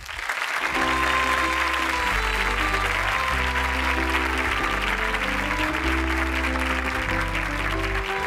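Audience applauding over music: a dense, steady clatter of clapping laid over sustained band notes with a bass line that changes about once a second.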